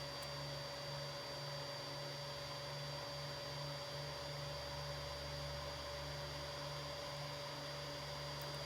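Steady electrical hum with a faint high whine from a budget soldering station running after being switched on and turned up to heat.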